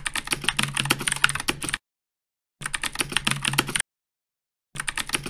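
Keyboard typing sound effect: three bursts of rapid key clicks, each stopping abruptly, with dead silence between them.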